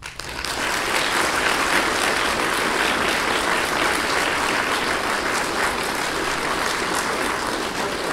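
Audience applauding in a large hall, many hands clapping steadily after a brief rise at the start.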